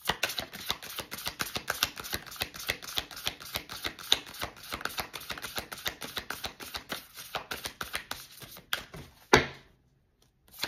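A deck of reading cards being shuffled by hand: a fast, dense run of light card slaps and clicks for about nine seconds. Shortly after the shuffling stops there is one sharp knock.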